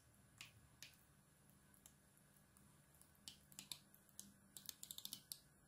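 Faint crackling clicks of a soft plastic mayonnaise pouch being squeezed by hand, a few spaced apart at first, then a quick run of them over the last couple of seconds.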